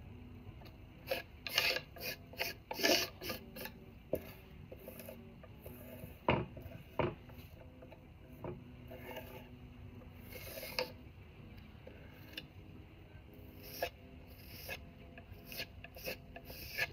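Steel palette knife scraping across a wooden panel in short, irregular strokes, spreading and smoothing a wet chalk-and-glue gesso ground (levkas).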